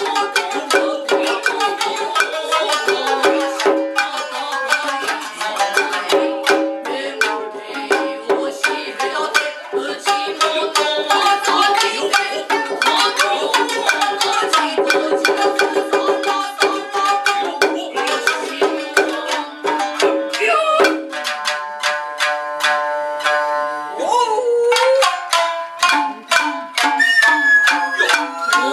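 Nagauta ensemble playing: plucked shamisen with kotsuzumi and ōtsuzumi hand drums and a stick-struck taiko giving sharp, dense strokes, and voices singing at times. A transverse bamboo flute enters with a high held line near the end.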